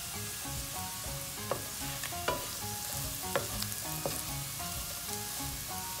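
Okra and onions sizzling in oil in a frying pan, with a spatula clicking and scraping against the pan a few times as the curry powder is stirred in.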